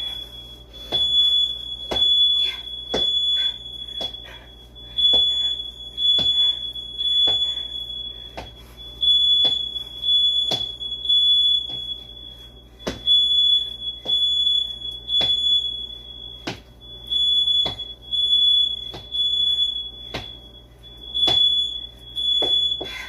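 Household smoke alarm sounding a high-pitched tone with short breaks, set off by incense smoke. Sharp thumps land about once a second and are the loudest sounds.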